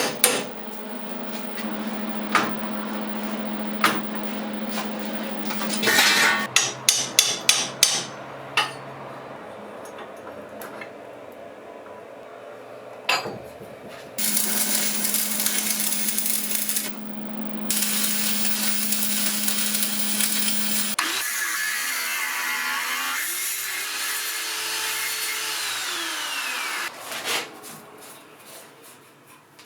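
Workshop sounds: a series of sharp hammer taps and an electric motor humming steadily. Late on, the motor's pitch rises and then falls away as it spins up and runs down.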